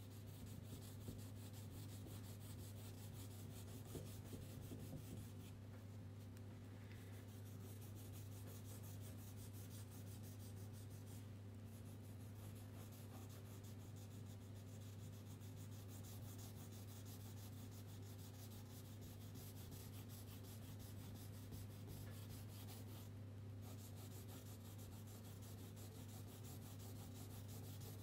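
Crayon rubbing on paper in continuous scratchy shading strokes, faint, over a steady low hum.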